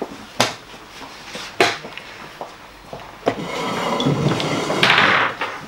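A few sharp wooden knocks of chess pieces and clock buttons at the tournament tables, then, about three and a half seconds in, a louder stretch of scuffing noise lasting about two seconds.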